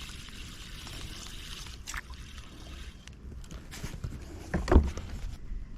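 Water trickling and light handling noises in a kayak, with a few small clicks and one sharp knock against the hull near the end.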